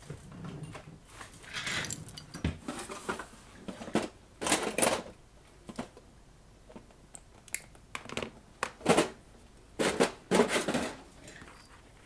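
Forceps and small parts being handled at a workbench, with plastic tubing being fitted over the forceps tips: irregular clicks, scrapes and rustles. The louder ones come around the middle and near the end.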